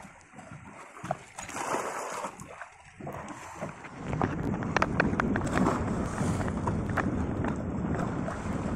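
Wind buffeting the microphone over water sloshing against a small boat's hull, growing louder and denser about four seconds in, with scattered light knocks.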